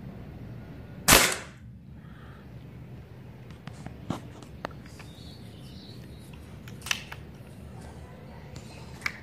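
A BSA Stutzen .177 air rifle fires a single shot about a second in, a short sharp crack. Several light clicks follow, then a sharper clack near seven seconds as the rifle is handled and its lever worked to cock it for the next shot.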